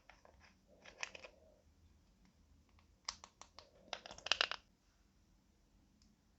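Slime being worked by hand, giving quick clusters of small sticky clicks and crackles, one burst about a second in and a denser run from about three to four and a half seconds in.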